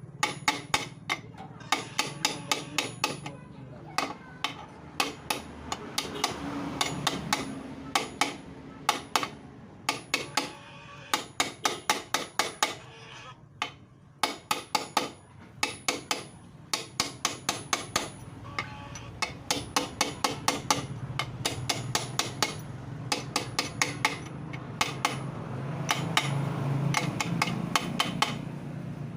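Hammer striking metal over and over in quick runs of several blows a second, with short pauses between runs, while a motorcycle engine is being stripped down.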